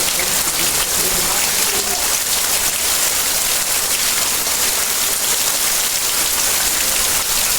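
Heavy rain falling steadily, a loud even hiss of drops hitting surfaces.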